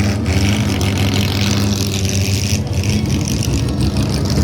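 Car engine running at a loud, fairly steady pitch, with a hiss of noise above it.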